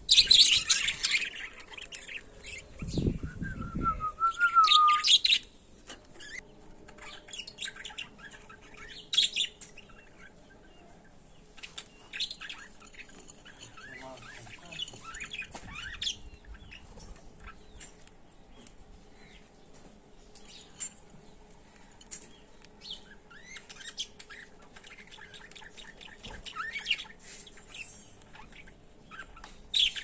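Budgerigars chirping and chattering, loudest and densest in the first few seconds, with a short warbling note about four seconds in, then softer scattered chirps and squawks. A brief low rumble about three seconds in.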